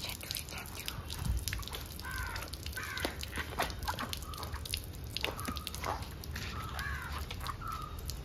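Crows cawing repeatedly, with the drips and wet splashing of a soaked Shih Tzu's coat being rubbed by hand.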